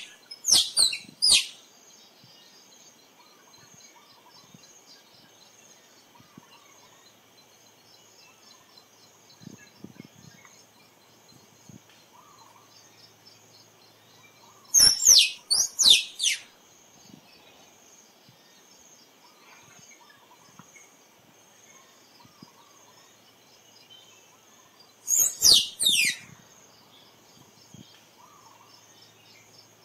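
A squirrel calling in three short bursts: one about a second in, one about 15 s in, one near the end. Each burst is a quick run of sharp, high chirps that sweep steeply downward. Between the bursts is a faint steady high insect hum.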